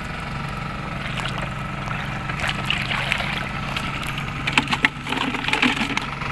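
Shallow seawater splashing and sloshing as people wade and reach into it, with a few sharper splashes about four and a half seconds in, over a steady engine hum.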